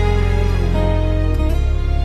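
Slow, gentle instrumental background music with held chords over a steady bass, with a chord change about a second and a half in.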